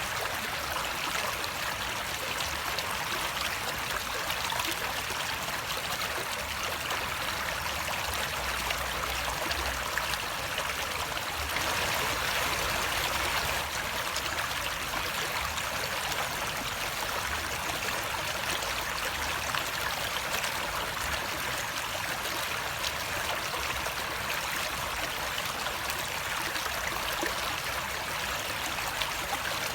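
Flowing water running steadily, a continuous rushing with a slight swell about twelve seconds in.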